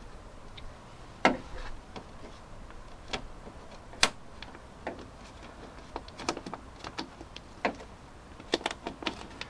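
Plastic moisture membrane on the inside of a car door being worked loose by hand: irregular sharp clicks and crackles, the loudest a little over a second in and about four seconds in, then a run of smaller ones.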